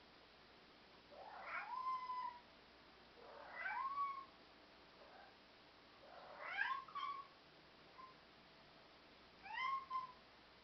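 European Shorthair cat meowing four times, roughly every three seconds; each meow rises in pitch and then holds briefly before ending.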